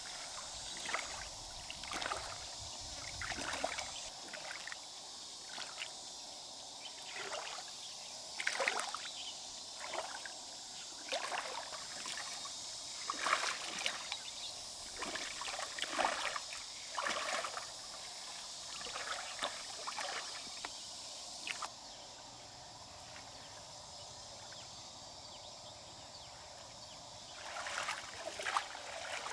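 Water splashing and sloshing in short, irregular bursts over a steady high hiss.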